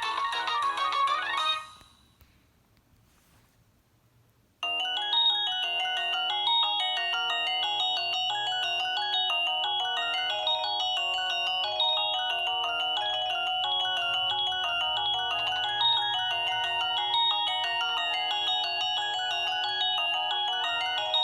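Nokia 6681 ringtones: one polyphonic ringtone tune ends about a second and a half in, and after a few seconds of near silence another polyphonic ringtone melody starts abruptly and plays on.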